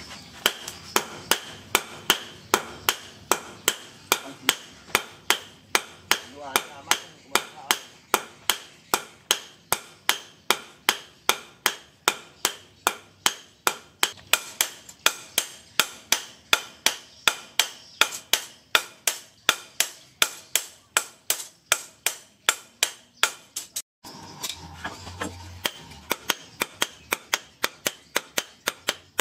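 Hammer blows on a red-hot steel sword blade on a steel anvil, forging the blade. The sharp metallic strikes come in a steady rhythm of about two to three a second. They stop briefly near the end and then resume.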